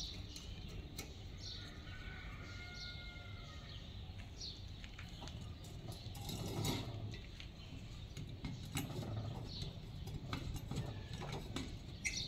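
Homemade steel hand-drill stand being worked by its lever, its carriage sliding on the column with scattered metal clicks and knocks, the loudest a little past the middle.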